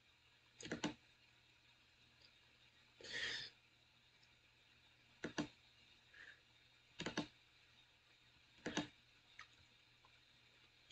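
Computer mouse clicks over near-silent room tone: a handful of short clicks at uneven gaps, each a quick pair of press and release. A brief soft rush of noise comes about three seconds in.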